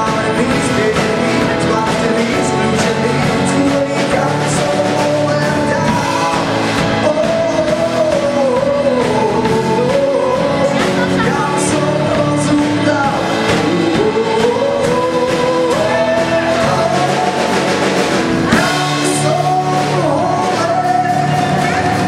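Live band music: a male singer singing a melody over his strummed acoustic guitar, backed by drums.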